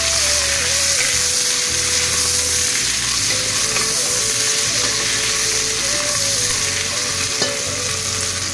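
Sliced red onions sizzling in hot oil in a stainless-steel pressure cooker pot, a steady frying hiss, with a wooden spatula stirring through them. One light knock near the end.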